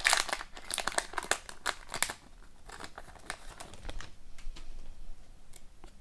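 Wrapper of a hockey card pack crinkling and tearing as it is opened, busiest for the first two seconds, then a few fainter crinkles and clicks.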